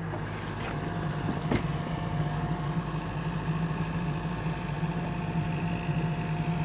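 Backhoe loader's diesel engine running steadily while the bucket digs, with a brief knock about one and a half seconds in.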